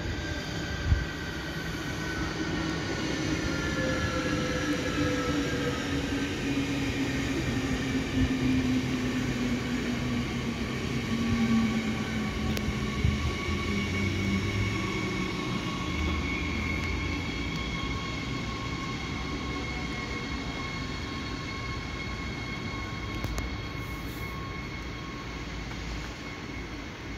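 Electric regional train running into the station: its motor whine falls slowly in pitch as it slows, over the rumble of wheels on rail, then settles into a steadier electric hum. A brief sharp knock about a second in.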